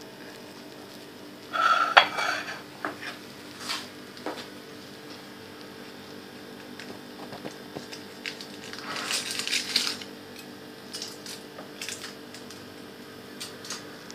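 Cutlery clinking and scraping against a plate in scattered short clatters, loudest about two seconds in and again in a longer scrape around nine to ten seconds, over a faint steady hum.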